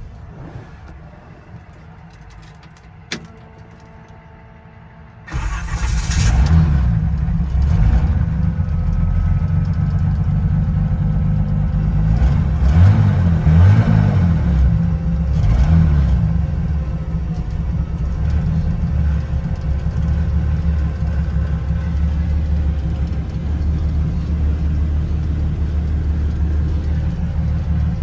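The 1963 Chevrolet C10's turbocharged 4.1-litre Pontiac SOHC inline-six starting about five seconds in after a click, revved several times, then settling to a steady idle. Heard from inside the cab.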